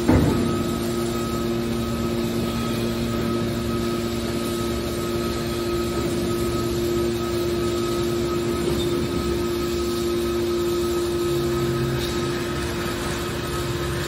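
Hydraulic scrap metal baler running: a steady hum from its pump unit while the hydraulic cylinders fold the heavy steel lid down over the press box. There is a sharp clunk right at the start.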